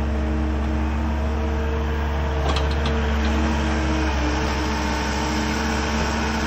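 Diesel engine of a Cat 310 excavator running at a steady speed as its arm and bucket lift away from the tank, with a strong low hum and a few steady tones above it and a few faint clicks about two and a half seconds in.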